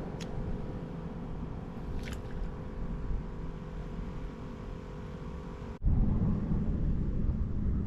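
Steady low rumble of road traffic with a faint steady hum; it breaks off abruptly about six seconds in and comes back louder.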